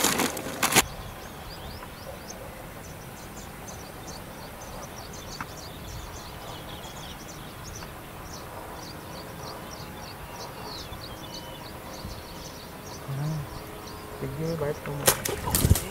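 A plastic bag crinkles briefly as bait dough is kneaded in it. After that, a steady open-air background with a dense, continuous chorus of short high chirps, and a burst of loud rustling near the end.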